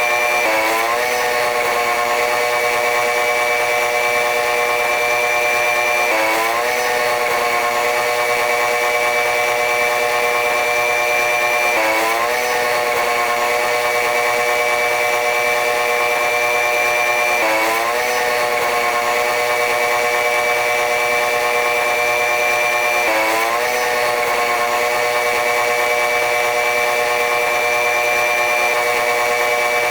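Steady train running noise: a high, motor-like whine with a thin high tone over it. About every six seconds the pitch sweeps briefly upward and then settles, repeating evenly.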